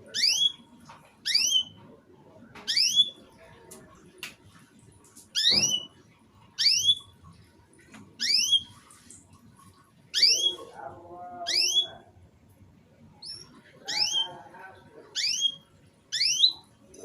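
Canary giving short, separate rising chirps, about a dozen, roughly one every second and a half. This is choppy short-burst canary song (kenari putus-putus) played to prompt young canaries to start singing. A fainter, lower chatter runs under it at times.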